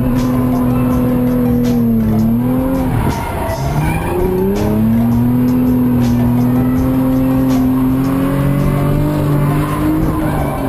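Car engine held at high revs, easing off briefly about two seconds in and pulling back up, with tyres squealing as the car slides. Music plays underneath.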